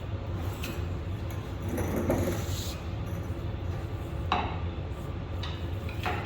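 Pry bar working a truck transmission loose from the engine: a few sharp metal clinks and a short scrape, over a steady low hum.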